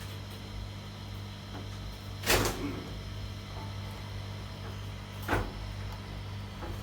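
A steady low electrical hum, with two short noisy bursts, the louder about two seconds in and a weaker one about five seconds in.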